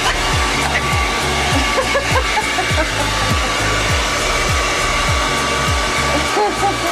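Handheld blow dryer running steadily, a dense rush of air with a thin motor whine through it. A low thump repeats underneath, a little under twice a second.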